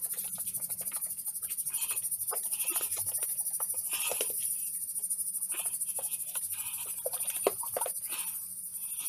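Cream sloshing and knocking inside a closed crème fraîche pot that is shaken hard and fast by hand, churning it toward butter. A steady high-pitched hiss runs behind it.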